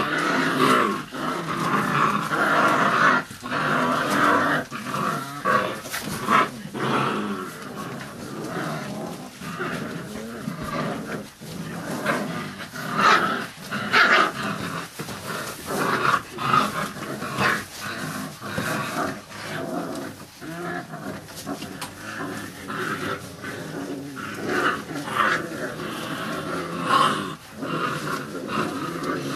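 A litter of five-week-old bandog puppies growling at play as they tussle around a person's hand, a busy stream of short overlapping calls with scarcely a pause.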